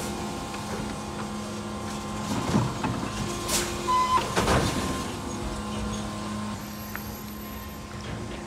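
Electric Mack LR New Way sidewinder garbage truck running with a steady hum, with clanks and knocks about halfway through, a short hiss of air and a brief beep.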